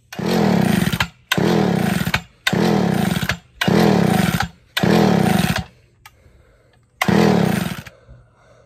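Homelite 360 two-stroke chainsaw being cranked with its pull starter: six hard pulls, five in quick succession and a last one after a short pause, each turning the engine over for about a second without it catching. The saw has been flooding, and this is a test after its carburettor's metering lever spring was stretched.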